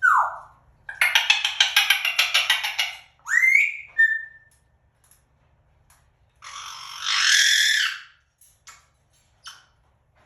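African grey parrot calling: a falling whistle, then about two seconds of fast repeated squawks at about six a second, a rising whistle and a short beep, and after a pause one longer harsh screech.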